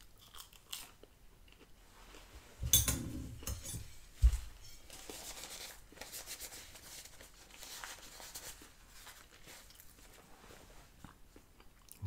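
Close-up mouth sounds of chewing a Chicken McNugget, then the crinkle and rustle of a paper napkin being unfolded. A louder crunchy burst comes about three seconds in, and a sharp knock about a second later.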